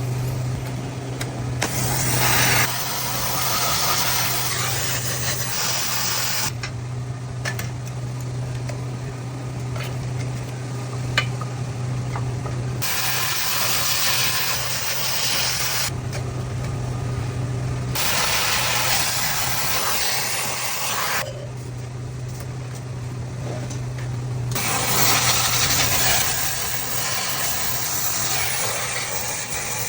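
Electric welding arc crackling and hissing in four runs of a few seconds each, the welds of a steel chair frame. Between the welds a steady low machine hum is left.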